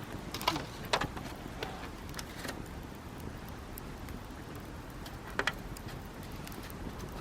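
Campfire of hinoki (Japanese cypress) firewood crackling, with a few sharp pops, the loudest about half a second and a second in and another just after five seconds, over a steady low background noise.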